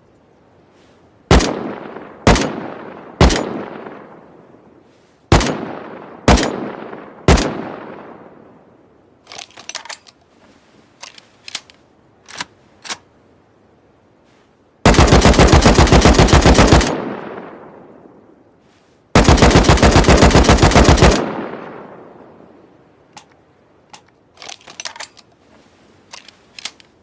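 Handmade AK assault rifle sound effect: six single shots, each with a long echoing tail, in two groups of three about a second apart. Scattered light clicks follow, then two loud rapid-fire bursts of about two seconds each, a couple of seconds apart, and a few more clicks near the end.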